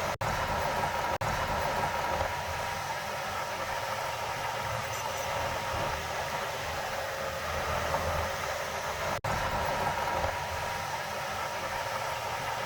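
Heavy earthmoving machinery running steadily under load, a continuous engine drone with a steady whine over it. The sound cuts out for an instant three times.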